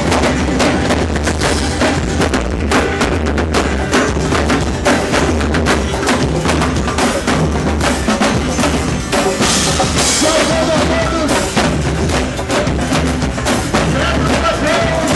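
A band playing music with a full drum kit keeping the beat.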